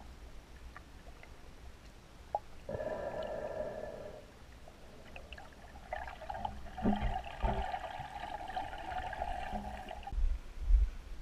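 Muffled sound picked up by a camera under water: a steady hum that comes in briefly about three seconds in and again for about four seconds from six seconds in, with a few low knocks.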